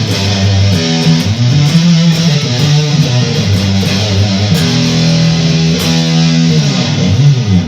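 Yamaha Pacifica electric guitar played through an Electro-Harmonix Big Muff Nano fuzz pedal: loud, thick sustained chords that change every second or so and stop abruptly near the end.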